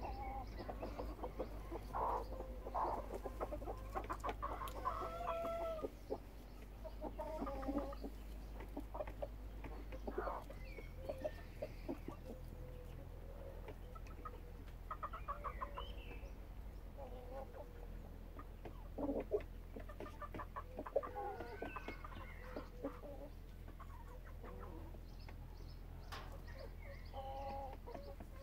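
Hens clucking and giving short calls again and again, some calls rising and falling in pitch, over a low steady hum.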